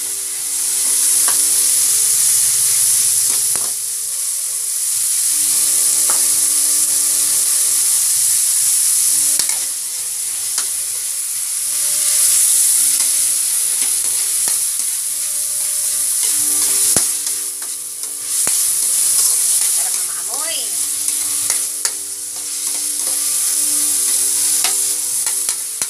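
Pork, tomato, onion and garlic sautéing in oil in a steel wok, sizzling while a metal spoon stirs and scrapes. The sizzle swells and fades as the food is turned, and the spoon clicks against the pan now and then.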